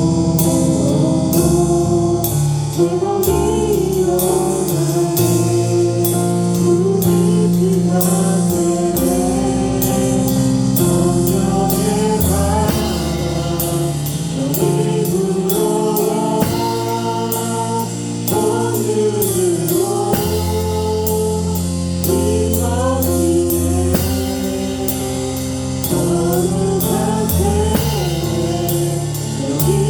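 Church praise band playing a worship song: voices singing the melody over a drum kit, bass and keyboard chords, with a steady drum beat throughout.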